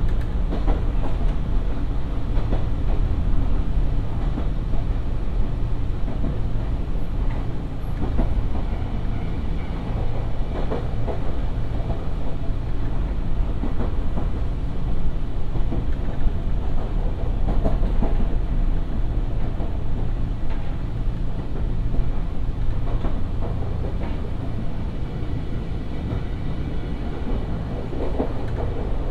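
Nankai 2200 series electric train running along the line, heard aboard: a steady low rumble of wheels on rail with occasional light clicks from the rail joints.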